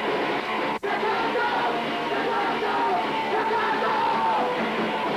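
Punk band playing live: loud, distorted rock with shouted vocals. The sound cuts out for an instant about a second in.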